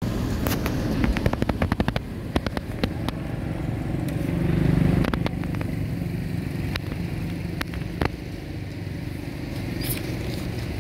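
A steady low engine rumble that swells about four to five seconds in. A quick run of sharp clicks sounds in the first two seconds, with a few single clicks later.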